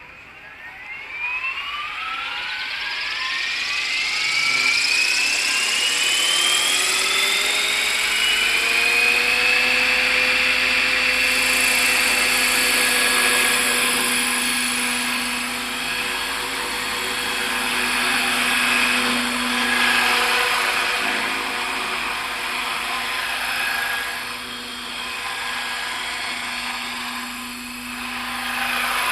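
ALZRC 505 electric RC helicopter spooling up: the motor and gear whine rises steadily in pitch for about ten seconds, then holds level as the rotor runs at speed, with the loudness wavering gently.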